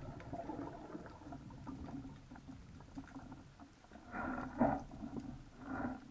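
Muffled underwater sound through a camera housing: a low murmur with scattered faint ticks, then a few short muffled surges in the second half.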